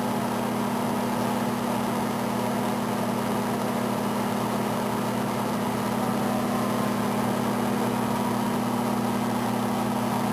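Microwave oven running with a steady hum while it heats a bowl of instant ramen noodles in water.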